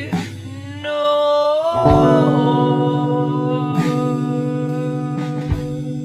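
Song played at double speed: a voice holding a long note that slides up about two seconds in, over sustained guitar chords.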